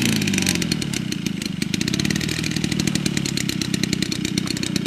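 Engine of a half-scale radio-controlled Fokker D.VI model running steadily at low power while the plane taxis on grass, a fast even rattle of firing strokes.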